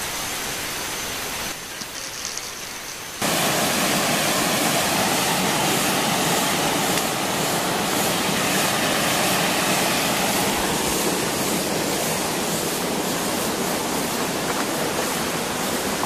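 Steady rush of a rocky stream running over stones in a small cascade. It jumps louder suddenly about three seconds in.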